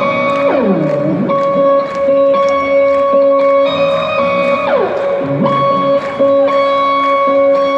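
Amplified electric guitar playing live through a stadium PA, holding one sustained note while other notes swoop steeply down in pitch several times.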